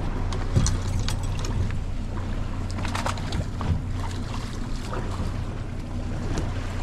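Boat engine running steadily with a low hum, with wind and water noise and scattered light clicks and knocks of fishing gear on the deck.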